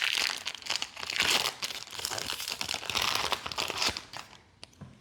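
Foil wrapper of a Pokémon card booster pack crinkling and tearing as it is opened, in several rustling surges that die down about four seconds in.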